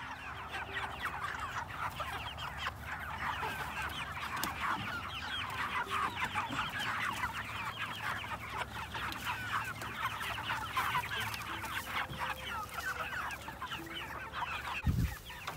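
A flock of Cornish Cross meat chickens calling, with many short overlapping calls running on without a break. A brief low thump comes near the end.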